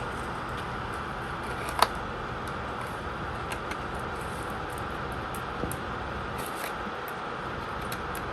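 Light scattered taps and clicks, with one sharper knock about two seconds in, over a steady background hiss: kittens batting a ball about.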